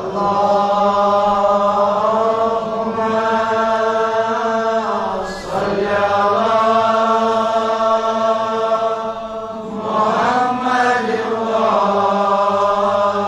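A congregation chanting a salawat (blessings on the Prophet and his family) in unison, in long drawn-out phrases with brief breaks about five and ten seconds in.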